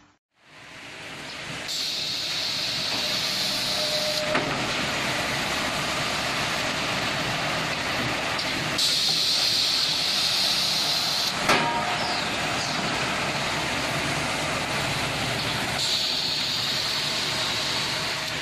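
An automatic plywood feeding machine runs with a steady mechanical noise. Three times, about seven seconds apart, a high hiss comes on for two to three seconds, and a sharp knock follows the first two.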